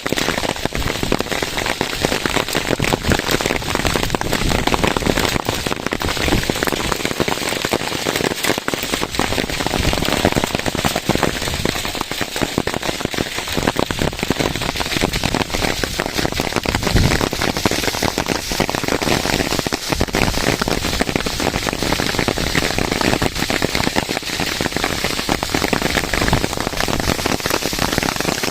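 Heavy rain falling hard, a steady dense patter of sharp hits.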